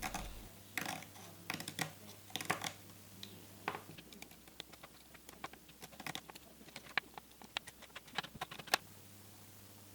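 A blade scraping glue residue and leftover leather off a shift boot frame: faint, irregular scratchy clicks that stop about nine seconds in.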